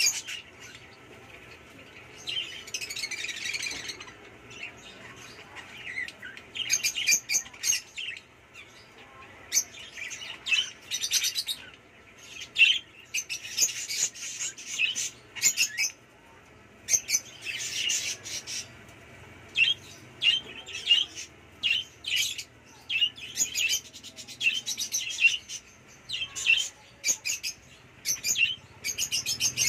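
Several caged budgerigars chirping and chattering in clusters of quick, high chirps, with short lulls between.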